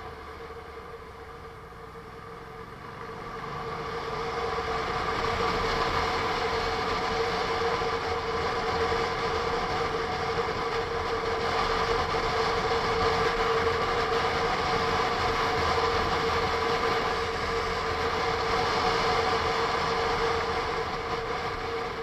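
Onboard sound of a Honda NC750S DCT motorcycle under way: the parallel-twin engine and wind noise with a steady whine. It grows louder about four seconds in as the bike picks up speed.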